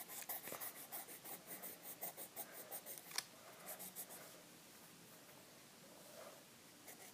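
Colored pencil scratching on paper in quick back-and-forth coloring strokes, about six strokes a second, with a single sharp tap about three seconds in. The strokes stop a little after four seconds, leaving only faint room tone.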